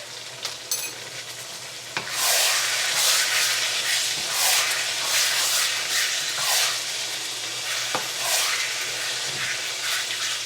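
Onions frying and sizzling in a pan while being stirred. The sizzling turns suddenly much louder about two seconds in and keeps coming in surges.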